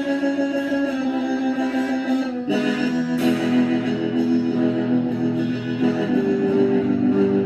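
Electric guitar playing sustained, ringing chords. A new chord is struck about two and a half seconds in, and the chord changes again about six seconds in.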